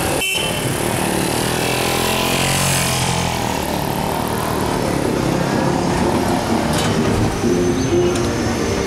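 City street traffic: car and van engines running as vehicles pass through an intersection, with one vehicle passing close about a second in.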